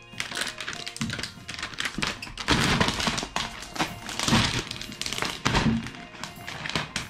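Clear protective plastic film being peeled off a computer screen, crinkling and crackling in irregular bursts that are loudest in the middle, over background music.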